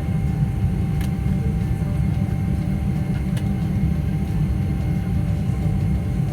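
Passenger airliner cabin noise: a steady low rumble with a faint, steady whine above it.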